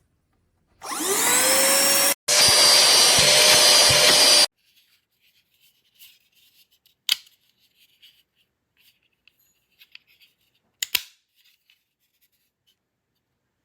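Cordless handheld vacuum's motor switched on, whining up in pitch as it spins up, then running loudly for about three and a half seconds with a brief break before cutting off abruptly. Two sharp clicks follow later.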